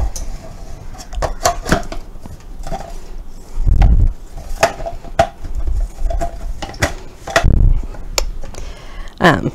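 Clicks and knocks of a plastic food processor bowl and lid being handled, with a few short, heavy low thumps, the loudest about four seconds in.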